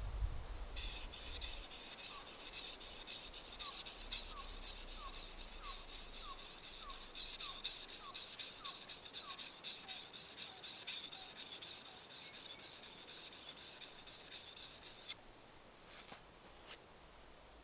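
A hand tool rasping or scraping in quick, regular back-and-forth strokes, about three to four a second, which stop abruptly near the end.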